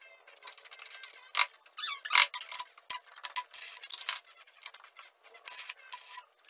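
Scattered light clinks and taps of steel parts and a square being set on a steel welding table, then near the end two short crackling bursts of an electric welding arc laying tack welds.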